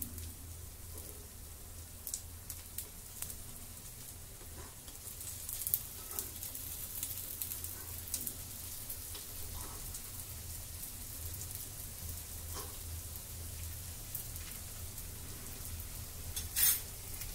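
Sweet wheat-and-jaggery appams sizzling in ghee in an appe pan, with a metal spoon clicking and scraping against the pan as each one is turned. A louder scrape comes near the end.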